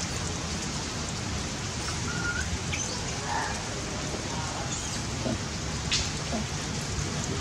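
A steady hiss of background noise, with a few faint short squeaks.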